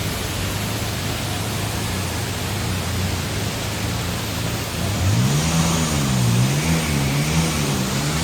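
Waterfall's steady rush of falling water, with a steady low hum under it. About five seconds in, a wavering voice-like tone rises over the rush.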